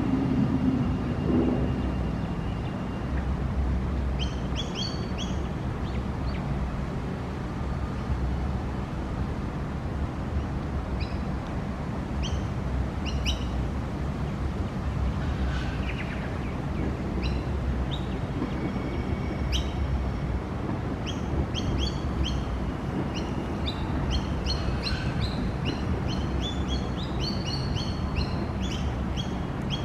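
Birds chirping in short, high calls, scattered at first and coming more often in the second half, over a steady low rumble.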